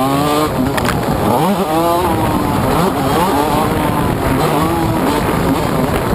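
TM MX 125 two-stroke motocross engine at race pace, its pitch climbing and dropping several times as the rider works the throttle and gears, over a steady rush of wind noise.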